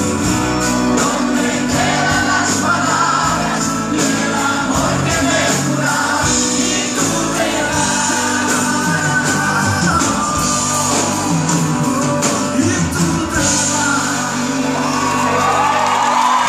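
Live band and two male singers performing a pop ballad duet, heard through the hall from among the audience, with shouts and whoops from the crowd. Near the end a singer holds a long, wavering note.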